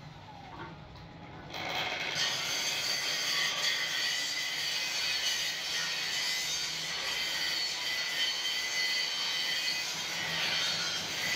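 Electric angle grinder grinding rust off a steel bar. After a quieter start, the disc bites about a second and a half in, and it runs loud and steady with a high whine from then on.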